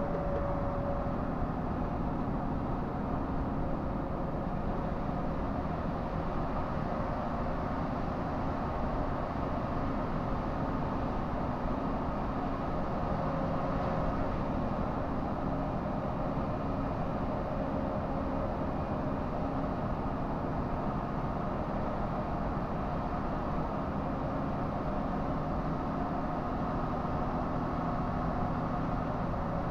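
Truck engine and road noise while driving: a steady drone held at an even pitch throughout.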